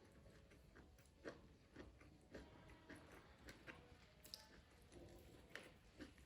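Faint chewing of food, heard as soft, irregular clicks and crunches a few times a second.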